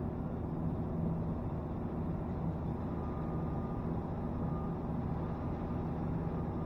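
Steady street traffic noise with a low, even hum and no sudden sounds.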